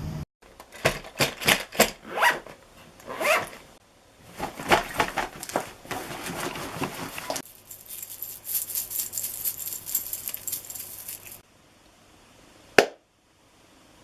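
Foley sound effects recorded one after another: a run of sharp knocks and clatter, then a high crackling hiss lasting about four seconds, and a single sharp snap near the end.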